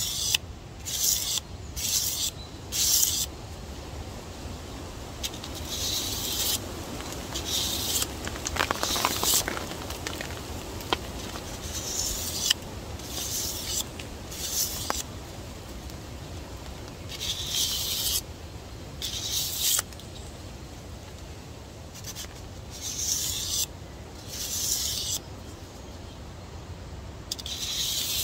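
Knife edge being drawn across 800-grit sandpaper in single strokes: short rasping hisses about half a second long, some in quick pairs and others a couple of seconds apart.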